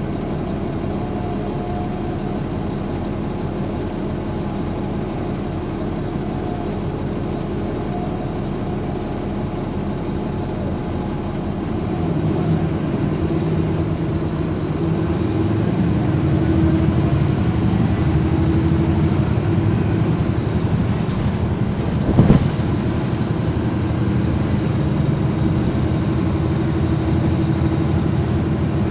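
NABI 416.15 transit bus's Caterpillar C13 ACERT diesel engine running under way, heard from inside the bus. About twelve seconds in it grows louder as the bus picks up, with the engine note shifting in pitch. One sharp thump comes a little past twenty-two seconds.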